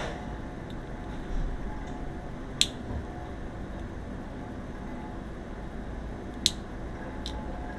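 Two sharp clicks, about four seconds apart, with a fainter third near the end, over a steady low hum.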